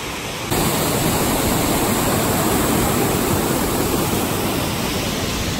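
Steady rush of a waterfall churning into a rock pool, an even hiss of whitewater. About half a second in it turns louder and brighter, then holds.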